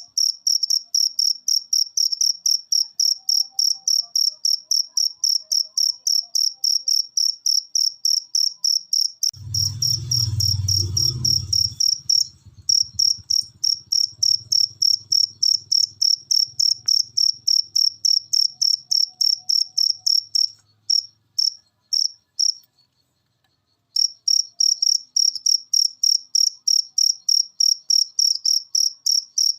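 A cricket chirping, a fast even train of high-pitched chirps at about four or five a second. About a third of the way in, a low rumble runs under it for a couple of seconds. Past the two-thirds mark the chirping falters and stops for a few seconds, then picks up again.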